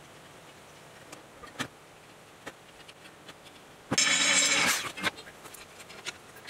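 Electric drill running briefly, boring a hole into the metal plate of a generator end cover, for about a second starting about four seconds in. A few light clicks and taps of metal parts being handled come before and after.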